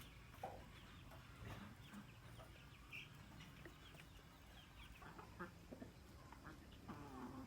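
Chickens clucking faintly: scattered short clucks and chirps, with a busier run of calls in the last couple of seconds.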